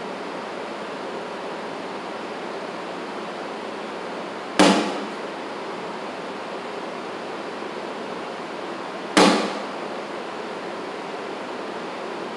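Two US Cornhole The Natural bags landing on a wooden cornhole board, about four and a half seconds apart. Each lands with a sharp thud that rings briefly in the big warehouse room, over a steady hiss.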